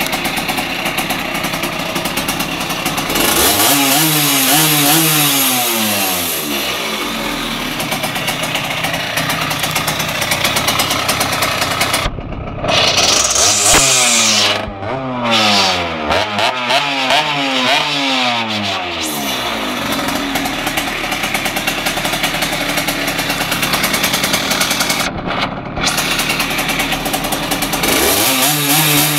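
Simson S80's 80 cc single-cylinder two-stroke engine, fitted with a Ducati Energia ignition and a tuned carburettor, running with several throttle blips that rev it up and let it drop back between steadier running.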